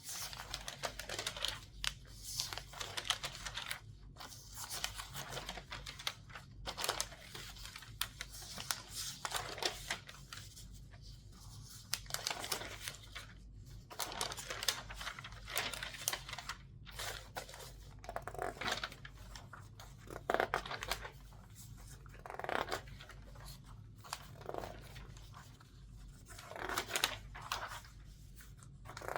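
Newspaper pages turned quickly, a crisp rustling swish every second or two. Near the end the newsprint is also squeezed and crinkled in the hands.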